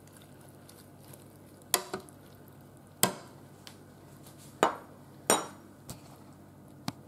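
Metal fork stirring steak tips and vegetables in a Cosori air fryer basket, with about eight sharp clinks and knocks of metal on metal, irregularly spaced.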